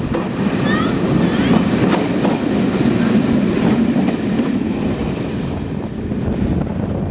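Class 121 single-car diesel multiple unit running along jointed track, its underfloor diesel engine rumbling and its wheels clicking irregularly over the rail joints.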